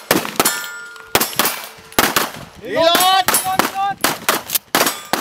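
Gunfire: a rapid, uneven string of about a dozen sharp shots. About three seconds in, a person's shout rises and falls between them.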